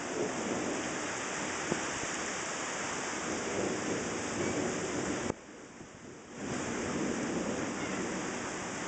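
Thunderstorm: steady rain with low rolling thunder rumbling underneath. The sound cuts out abruptly for about a second just past the middle, then resumes.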